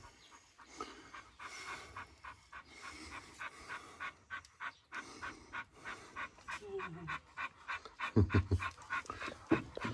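A dog panting quickly and steadily, about three breaths a second, with a couple of short, louder low sounds near the end.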